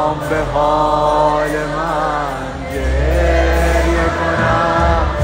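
A male singer performing a Persian pop song live with a band, heard from the audience in a large hall.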